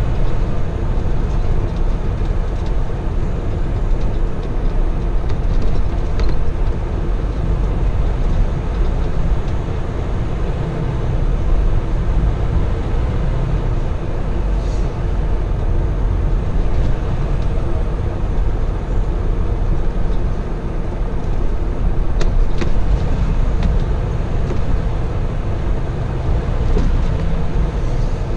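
Freightliner Cascadia semi truck driving, heard from inside the cab: a steady low engine rumble with road noise.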